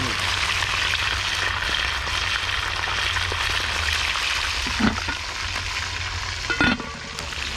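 Fish deep-frying in hot oil, a steady dense sizzle throughout, with two brief louder sounds about five and seven seconds in.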